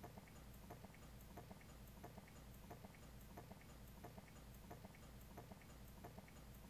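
Near silence: faint room tone with a low hum and a soft, regular tick about twice a second.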